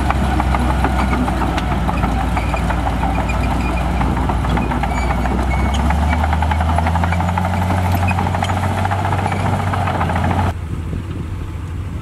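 Komatsu D58P crawler bulldozer's diesel engine running under load, with its steel tracks clattering as it crawls over loose dirt; the engine note rises a little about six seconds in. Near the end the sound cuts abruptly to a quieter, steady engine drone.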